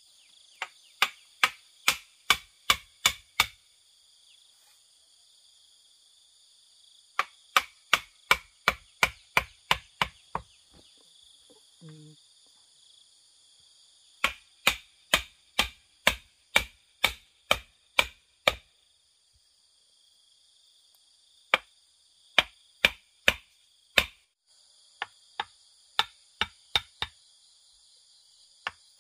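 Runs of regular chopping strikes, about two or three a second, five to twelve at a time with pauses of a few seconds between. Under them runs a steady high chorus of insects.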